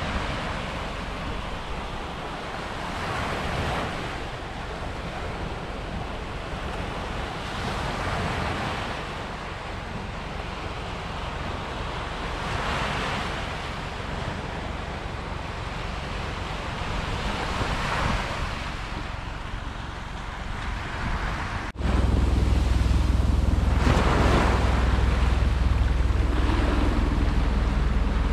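Small ocean waves breaking and washing up a sandy beach, the sound swelling every four to five seconds. About 22 seconds in it cuts to a closer, louder take with a deep wind rumble on the microphone.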